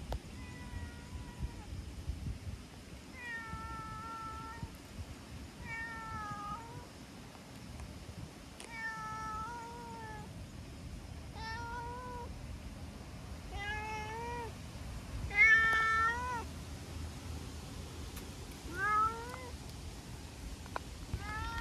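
A brown-tabby-and-white cat meowing about nine times, one drawn-out call every two to three seconds, many ending on an upward lilt. These are the chatty greeting meows of a talkative cat coming up to be petted. The calls grow louder, the loudest about fifteen seconds in.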